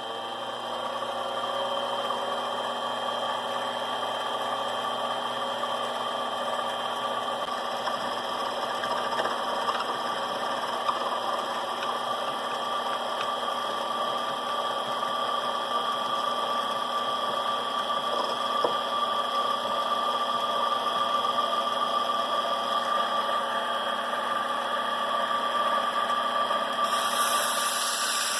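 Ringbom Stirling engine built from a portable generator, running. Its pitch rises over the first couple of seconds as it speeds up, then it holds steady, and a hiss joins near the end.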